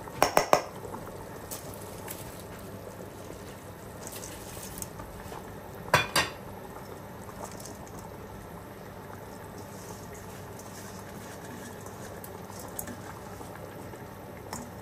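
Water with mutton boiling steadily in a cooking pot with a continuous bubbling hiss. A metal utensil clinks against the pot several times right at the start and twice more about six seconds in.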